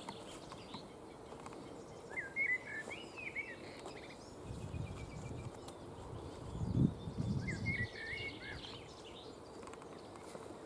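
A songbird singing two short warbled phrases, about five seconds apart, over steady outdoor background noise. A low rumbling noise comes in the middle, between the phrases.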